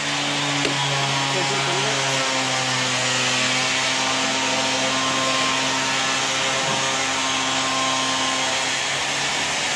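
Steady machinery noise: a low hum with a few unchanging tones under a loud, even hiss, like electric motors or fans running. The hum holds its pitch and does not climb.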